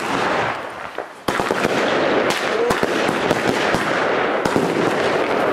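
Fireworks: a hissing launch of sparks from the ground, then from about a second in a sudden, dense, continuous crackling with scattered sharp pops.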